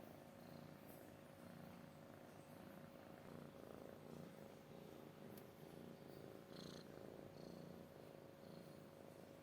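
Domestic cat purring steadily, the low purr swelling and easing with its breathing.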